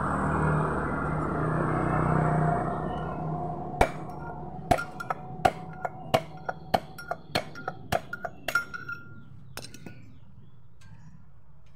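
Metal-on-metal hammer taps, about fifteen sharp strikes with a short ring each, knocking the worn pulley bearing out of a Honda Vario 125's CVT pulley. The taps start about four seconds in, after a few seconds of low steady hum.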